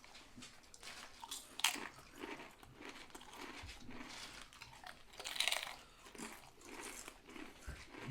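Close-miked chewing and biting into a sub sandwich, with irregular crunches; the loudest bites come a little under two seconds in and just past five seconds.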